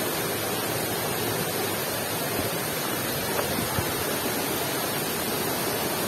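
Steady rushing of a waterfall and rocky stream, an even hiss with no breaks.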